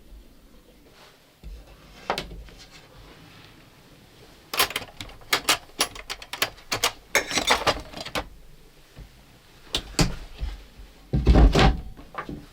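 A run of sharp clicks, knocks and clatter from objects being handled in a small enclosed space, busiest in the middle, with a heavy thump near the end.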